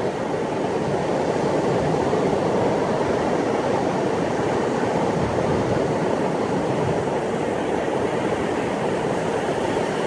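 Sea surf on a sandy beach: swell waves breaking offshore and washing up the sand in a steady, deep rush.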